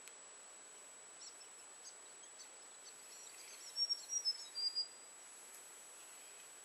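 A small bird chirping: scattered short high notes, then a quick loud run of chirps about four seconds in.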